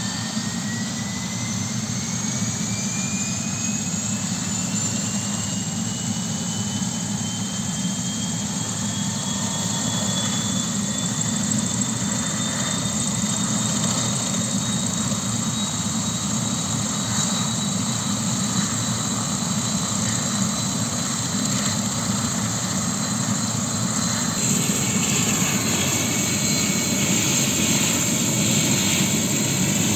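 Light turbine helicopter running up on the ground, rotor turning: a high turbine whine rises in pitch over the first ten seconds or so, then holds steady while the engine and rotor noise grows slowly louder. The sound shifts about three-quarters of the way through.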